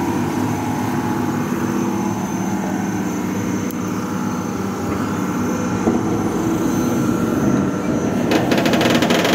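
Komatsu PC200 hydraulic excavator's diesel engine running steadily under load as the machine works its arm and bucket. Near the end a rapid clattering sets in over the engine.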